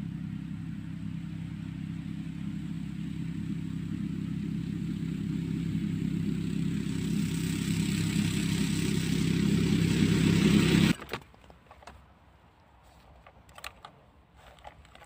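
Snowmobile engine running as it approaches over the snow, growing steadily louder, then breaking off abruptly about eleven seconds in. After that, only faint small clicks and rustles of tackle being handled.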